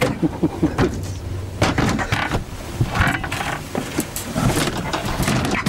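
Repeated knocks, thuds and rattles of a warped caravan fold-away dining table as its panels are forced into place to make a bed.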